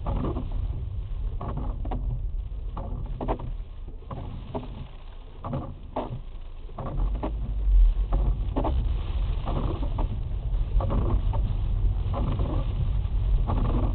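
Hailstones and sleet pelting a car's windshield from inside the cabin, as irregular taps a few per second over the low rumble of the moving car, which grows louder about halfway through.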